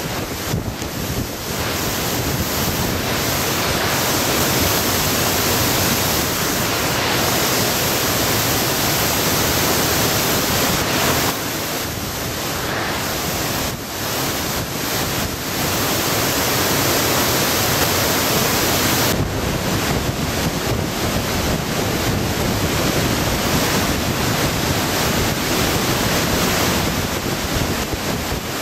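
Typhoon wind and driving rain over the roar of a flooded river in torrent, with gusts buffeting the microphone. The rush is steady and loud, shifting abruptly in character twice.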